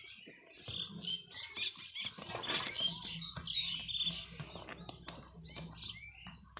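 Small birds chirping in quick, irregular calls, with scattered clicks and taps and a faint steady low hum underneath.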